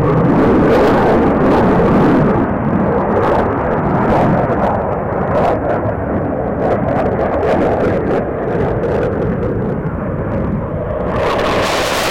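Saab JAS-39C Gripen fighter's Volvo RM12 turbofan, a loud jet rumble that dulls after about two seconds as its high hiss drops away, then brightens again near the end.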